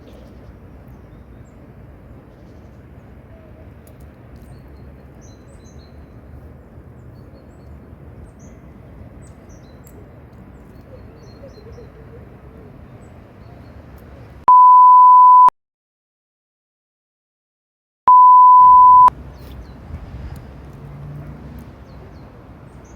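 Two loud, pure one-second censor bleeps at a single pitch, about three seconds apart, with the sound cut to dead silence between them, edited in to mask speech. The rest is faint, steady outdoor background noise.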